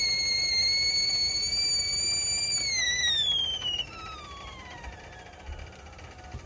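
Stainless stovetop whistle kettle on a gas hob whistling loudly at the boil. About three seconds in the whistle glides down in pitch and dies away as the burner is turned off.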